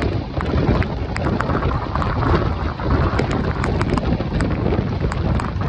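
Express train running at high speed in heavy rain: a steady rumble of wheels on rail dotted with sharp, irregular clicks, with wind buffeting the microphone. A goods train is passing on the next track.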